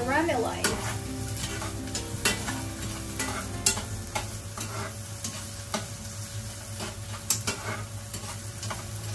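Sliced onions sizzling in hot oil in a frying pan as they are sautéed to caramelize, stirred with a metal utensil that clicks and scrapes against the pan at irregular intervals.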